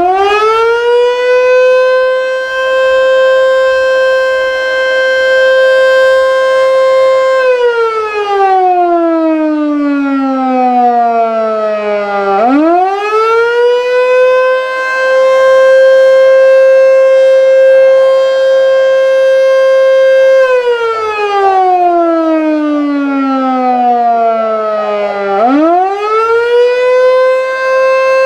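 Federal Signal Model 2 electromechanical fire siren sounding a test: it winds up to a steady high note, holds it for several seconds, then winds down in a long falling wail. This happens twice, and it winds up again near the end.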